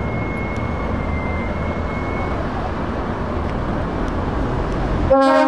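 DAF XF tractor unit's diesel engine running as the loaded artic pulls slowly away. A truck horn blasts loudly near the end.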